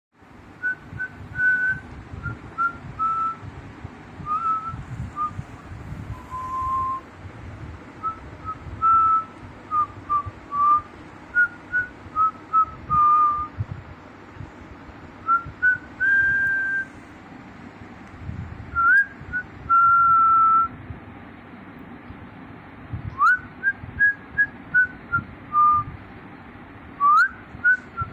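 Whistling: a long, irregular run of short, clear notes, mostly around one pitch. A few notes are held for about a second, and a couple near the end slide quickly upward.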